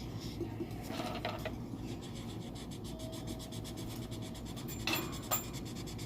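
A pen scratching across paper while writing by hand, with a few light taps about a second in and near the end.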